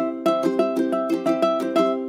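Background music: a plucked string instrument playing a steady, bright run of notes, about four a second.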